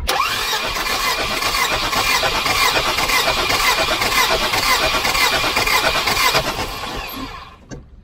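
Starter motor cranking a Volvo B230 four-cylinder engine over for a compression test, with a steady rhythmic churn. It starts abruptly and stops about seven seconds in.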